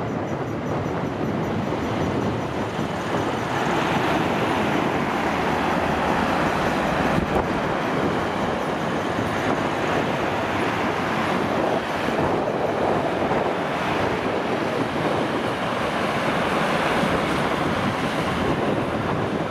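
Diesel trains moving through the rail yard: a steady rumble of engines and wheels on the track.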